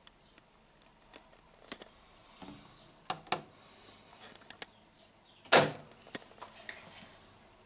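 Miele W1 washing machine at the end of its wash cycle: scattered light clicks and ticks, with one sharp, louder click about five and a half seconds in.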